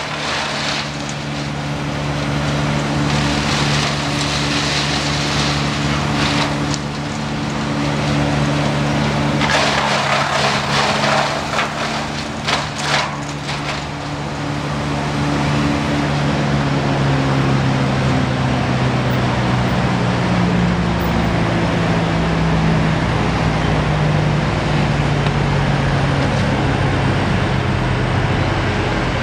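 A wood chipper's engine running steadily, with two stretches of noisy chipping, a few seconds in and again about ten seconds in, as tree branches are fed through.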